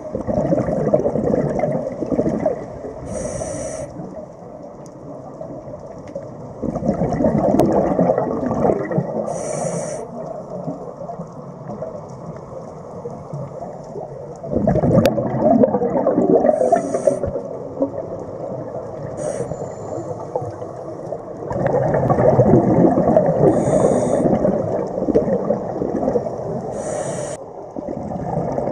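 Scuba diver breathing through a regulator, heard underwater: four long bursts of exhaled bubbles, each a few seconds long and about seven seconds apart, with short high hisses from the regulator in between.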